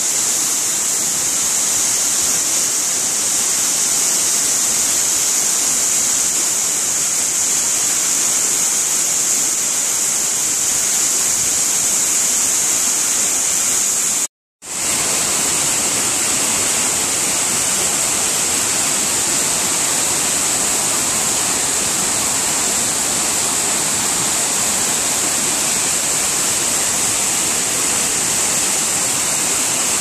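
Waterfall sheeting down a steep sloping rock face: a loud, steady, hissing rush of water. The sound cuts out completely for a moment about halfway through.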